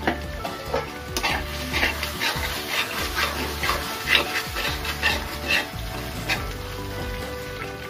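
Metal spatula stirring and scraping thick masala around a metal kadai, a run of scraping strokes about two or three a second that starts about a second in and stops near the end, over background music.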